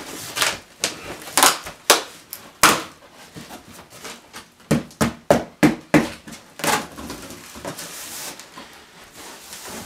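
Cardboard shipping box being pulled open and handled: flaps crackling, scraping and knocking in an irregular run of sharp sounds, thickest in the first three seconds and again around the middle.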